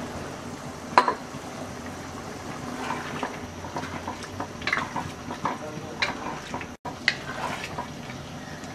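A spoon clinking and scraping against a cooking pot as rice and grated carrot are stirred together, with one sharp clink about a second in and a run of shorter scrapes and knocks after it.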